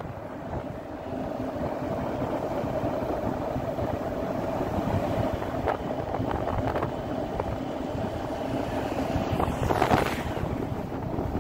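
Motorbike engine running at a steady road speed, with wind buffeting the microphone; a brief louder rush of noise about ten seconds in.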